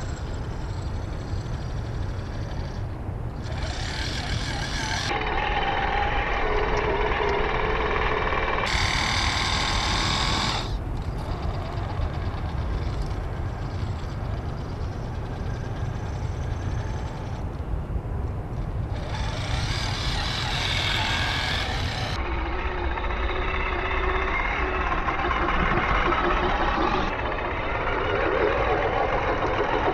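Electric motor and gear drive of an Axial SCX10 III RC crawler whining as it crawls through sand, over a steady low rumble. The sound changes abruptly a few times.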